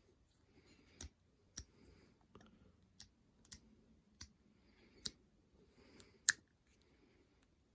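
Hand ratchet from a GearWrench 120XP swivel set being worked by hand: a series of sharp single clicks, spaced irregularly about half a second to a second apart, with faint handling rustle between them.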